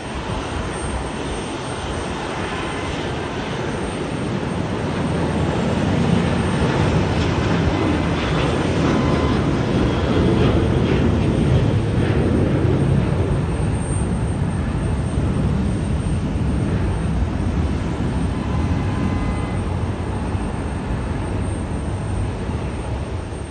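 Jet airliner passing close by, its engines' roar swelling over the first few seconds, loudest about a quarter to halfway through, then slowly fading as it moves away.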